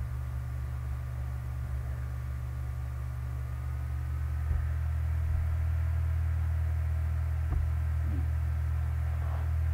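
Steady low electrical mains hum with faint hiss from the recording setup, and two faint clicks about halfway through and about three quarters of the way in.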